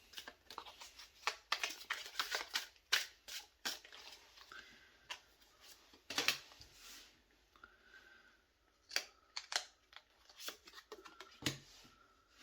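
Thin, matte-finish tarot cards being handled and laid out: a run of quick, light card snaps and slides, close together in the first half and more spaced out later.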